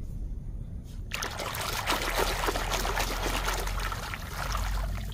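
Water running and splashing over a muddy toy truck as it is washed, starting suddenly about a second in and easing off near the end, over a steady low rumble.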